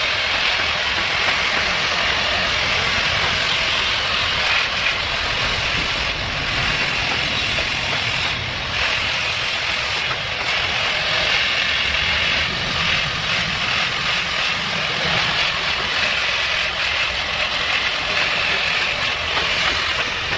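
Gas-welding torch flame hissing steadily while aluminium is welded, with a few brief breaks in the hiss.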